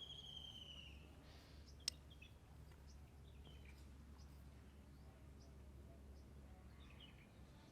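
Near silence: a low steady hum, with a faint falling whistle near the start and a single sharp click about two seconds in.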